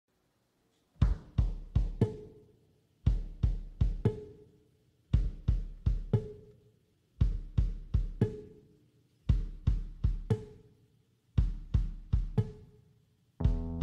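Background music with a drum beat, starting about a second in: groups of three or four kick and snare hits repeating about every two seconds.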